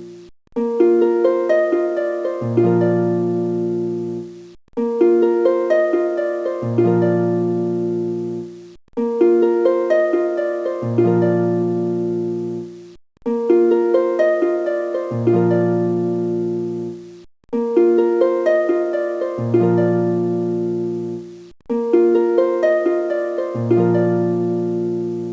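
Background music of plucked-string notes: one short phrase loops about every four seconds, with a brief silent break between repeats.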